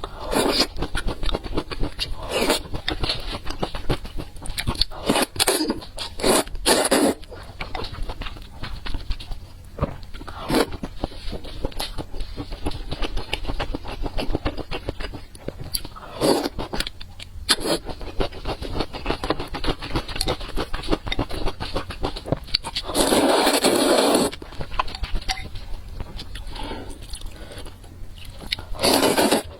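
Close-miked eating sounds: irregular crunching and chewing of food, with a louder, longer crunching or rustling noise lasting about a second and a half near the end.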